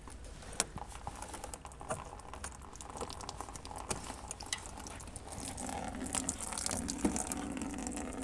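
Fuel pouring from a disconnected fuel line and splashing onto the floor, with scattered small clicks; the flow grows louder about five seconds in. The fuel is running out without any pump pressure, a sign that it is reaching the engine's mechanical fuel pump.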